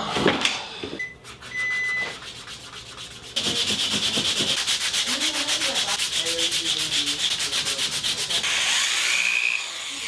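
Leather edge of a harness-leather belt strap being sanded or rubbed by hand, with a few handling knocks and then, from about three seconds in, a loud scratchy rasp of fast, even back-and-forth strokes.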